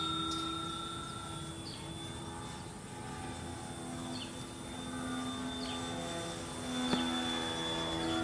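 Homemade electric RC plane in flight: its brushless motor and 14-inch propeller drone steadily, the pitch drifting slowly as it flies about and growing a little louder near the end.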